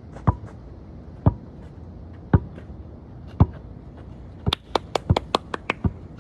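Basketball bouncing on hard ground: slow dribbles about once a second, then a quicker run of about eight sharper bounces in the second half.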